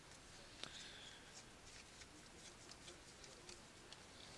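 Near silence with faint, scattered soft ticks of trading cards being flipped through by hand, one a little louder under a second in.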